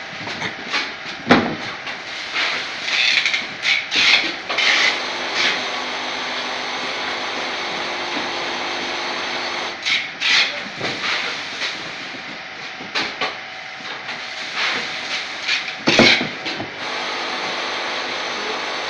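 Vertical packing machine with a weigher running, giving a steady mechanical hum and hiss. Irregular bursts of clattering and knocks break in every few seconds, loudest near the start and about two-thirds of the way through.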